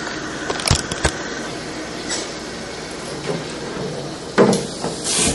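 A camera being set down with a couple of light knocks, over a steady rushing noise, then water sloshing in a stainless-steel sink as a hand goes into it near the end.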